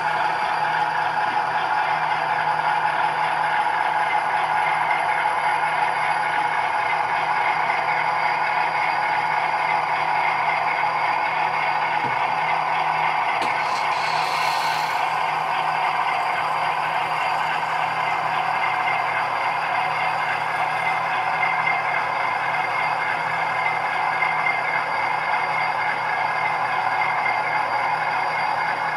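HO scale model coal train rolling past: a steady clatter of the hopper cars' wheels on the track, over the low, even diesel engine sound from the GE C39-8 locomotive's LokSound decoder. A short hiss comes about halfway through.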